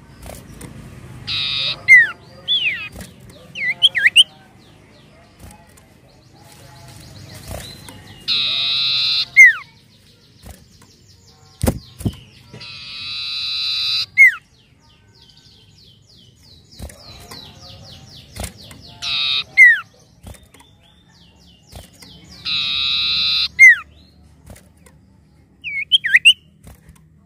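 Common iora calling: about five bursts of rapid, buzzy trilling, each ending in a sharp falling whistle, with a few short whistled notes in between.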